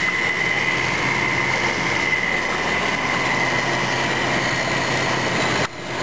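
Fedders 6,000 BTU window air conditioner running, compressor and fan going, with a steady high-pitched whine over a low hum: the fan motor still howls a little even after being oiled. The sound drops out briefly near the end.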